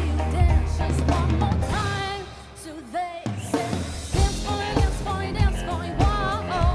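A band plays a pop song with a singer and a drum kit. The music thins out and drops in level about two to three seconds in, then comes back with the vocal line and an even drum beat.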